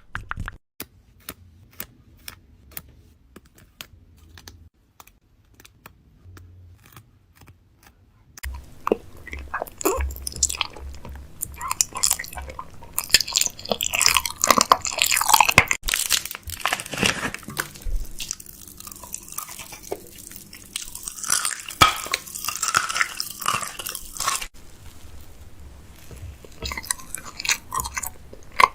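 Close-miked light clicks and taps, then from about eight seconds in a long stretch of dense crackling and crunching that eases off again near the end.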